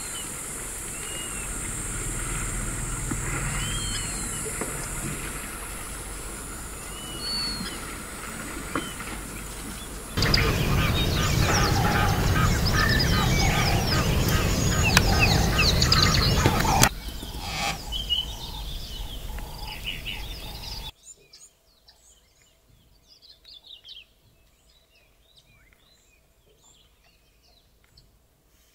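Outdoor bush ambience with birds calling. Repeated clear whistled calls sit over a steady high hiss, and a loud, dense stretch of chattering noise lasts about seven seconds in the middle. Near the end the sound drops to faint scattered chirps.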